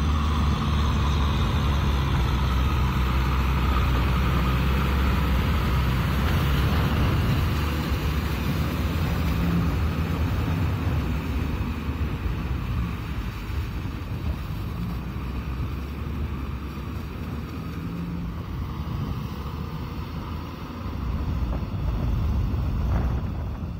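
Tractor diesel engine running steadily under load as its rotary tiller churns through mud and water in a flooded rice paddy.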